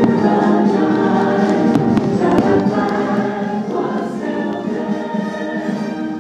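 Fireworks show soundtrack: a choir singing long held notes over music, easing slightly quieter toward the end, with a few faint firework bangs near the start and about two seconds in.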